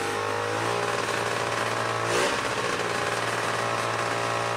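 1997 Polaris SLT780 WaveRunner's three-cylinder two-stroke engine running steadily. Its pitch edges up over the first couple of seconds, with a brief louder blip of revs about two seconds in.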